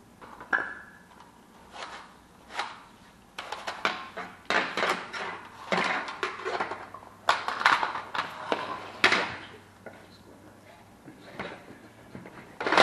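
Irregular knocks, clatter and scraping of hand tools being picked up and handled during drywall repair work, busiest in the middle of the stretch.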